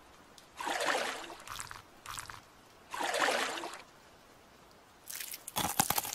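Wet mud squelching in three short, separate squishes, then a quick run of sharp wet clicks near the end.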